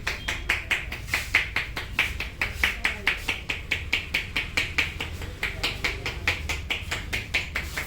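Hands striking the head in a rapid, even massage rhythm, about five or six slaps a second, as in Indian champissage tapping.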